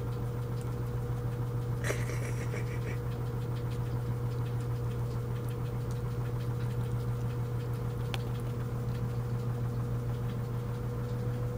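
Washing machine running, a steady low mechanical hum with a thin steady tone above it. A brief scratchy noise about two seconds in and a few faint clicks.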